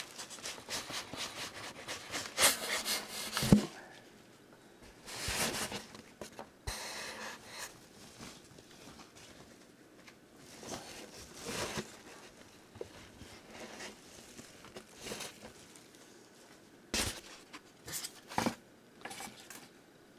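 Scraping and rubbing of a cardboard box and its styrofoam packing insert as a model locomotive is lifted out, in irregular bursts with quieter gaps, loudest in the first four seconds.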